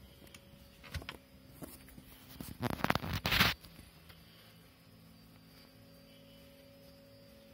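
Handling noise from the hand-held camera as it is swung around: a knock about a second in, then a short loud spell of rubbing and clicking over a faint steady hum.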